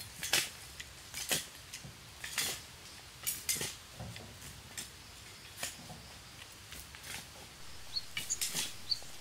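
Scattered light clicks and scrapes at irregular intervals, with a few short high bird chirps near the end.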